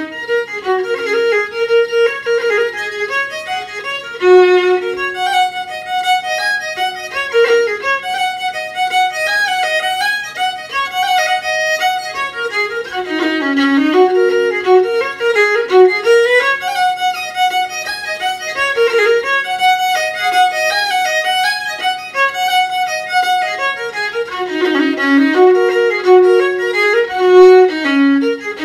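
Solo fiddle playing a quick tune in G major in 4/4, its melody ornamented with rolls on the note B.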